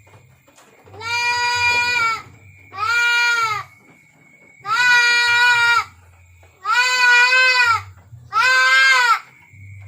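Goat bleating loudly five times in a row. Each call lasts about a second and holds a steady pitch that bends up at the start and falls away at the end.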